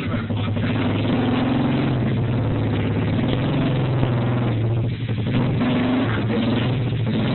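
Pit bike engine running steadily, with a brief drop in level about five seconds in.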